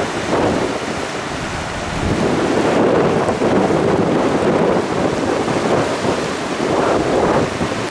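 Hurricane storm-surge floodwater rushing and churning past, with strong wind buffeting the microphone; the noise swells louder about two seconds in.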